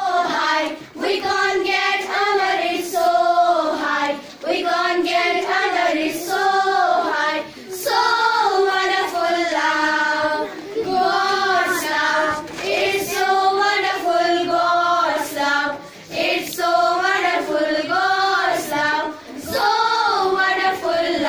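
A group of schoolgirls singing a song together in unison, in short phrases with brief breaths between them.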